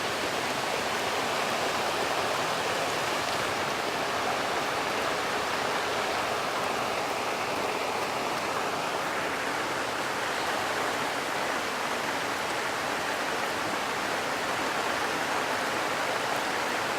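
Heavy rain falling steadily in a thunderstorm, pouring down onto a swimming pool and its surroundings as an even hiss with no thunder.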